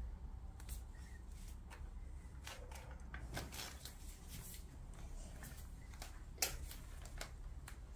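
Faint light clicks and rustling from a baby moving about in a plastic baby walker, hands on its toy tray, with one sharper knock about six and a half seconds in.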